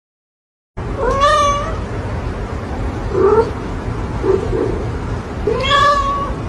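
A domestic cat meowing twice: a drawn-out meow about a second in and another near the end, each rising then holding steady, over a steady background hiss.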